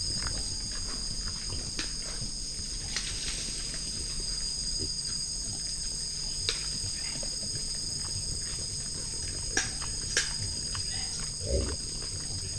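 White-lipped peccaries feeding on fruit: scattered sharp clicks and crunches of chewing, two of the loudest close together about ten seconds in. There is a short low sound near the end, over a steady high-pitched insect chorus.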